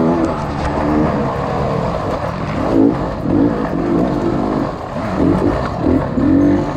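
Off-road motorcycle engine revving up and down repeatedly, its pitch rising and falling several times in quick succession.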